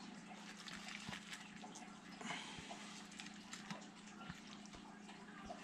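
Faint wet squelching and small clicks as a knife cuts inside a skinned burbot's belly cavity and the guts are worked loose, over a low steady hum.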